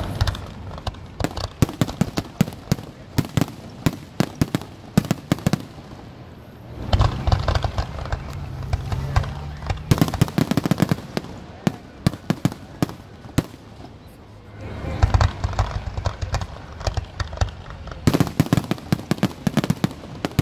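Fireworks display: many sharp bangs and crackles from aerial shells bursting and comets launching, coming in dense volleys with a low rumble in between.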